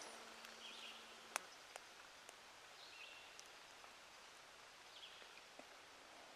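Near silence: faint outdoor background hiss with a few faint, distant high bird chirps and a single soft click about a second and a half in.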